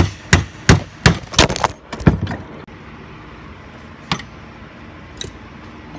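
Hammer blows on a flat-blade tool driving the cut-through old bushing sleeve out of a cast control arm held in a bench vise. About six sharp strikes, roughly three a second, over the first two seconds, then a single knock about four seconds in.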